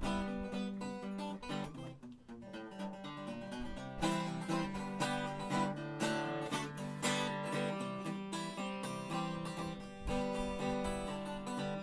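Acoustic guitar strummed in a steady rhythm, playing an instrumental break in a country-style song with no singing.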